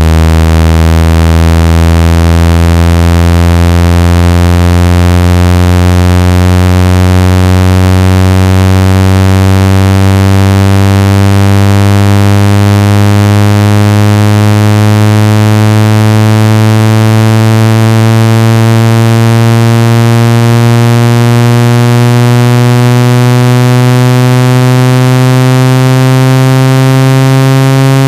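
Synthetic water-ejection tone for clearing water from a phone speaker: a loud, low, buzzy tone with many overtones, rising slowly and steadily in pitch.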